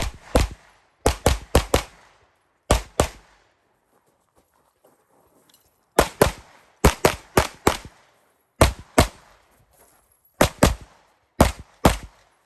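Pistol shots fired in quick pairs and short strings, about two dozen in all, with pauses between the groups as the shooter moves between targets.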